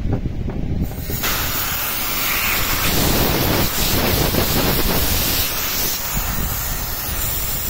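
Test pressure hissing out of a car AC system through a manifold gauge set as a valve is opened, starting about a second in and continuing steadily: the leak-test pressure held after a compressor replacement being released.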